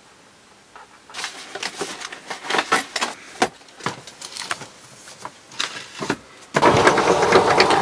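Papers, folders and ring binders being handled and shifted on a shelf: irregular rustles, flaps and knocks starting about a second in, then a louder continuous rustling from about two-thirds of the way through.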